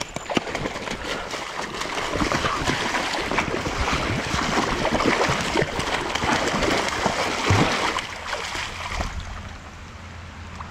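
A large hooked trout thrashing and splashing at the surface of a shallow stream as it is fought and landed, over the running stream. The splashing is loud and busy, then dies down about nine seconds in.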